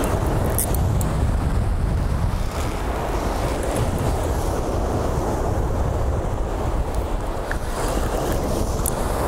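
Wind buffeting the microphone over the steady wash of breaking surf, with a few faint clicks.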